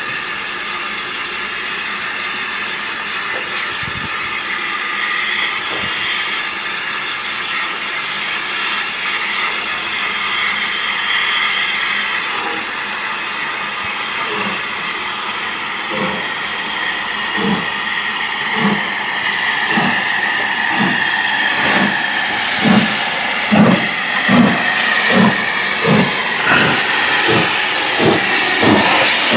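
LMS Jubilee steam locomotive 45690 Leander arriving, with a steady hiss of escaping steam. From about halfway a regular beat of low pulses comes in, roughly one a second, growing louder and a little quicker as the engine comes alongside.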